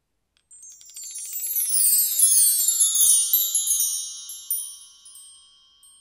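Magic sparkle sound effect: a cascade of many high chime tones that starts about half a second in, swells, then fades away near the end.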